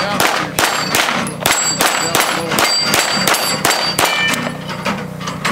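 Rapid string of pistol shots, a dozen or more in quick succession, with hits on AR500 steel pop-up targets ringing out as short high dings after several of the shots.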